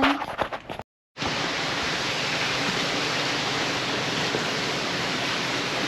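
Steady rushing of falling water from a water feature, beginning after a brief break about a second in.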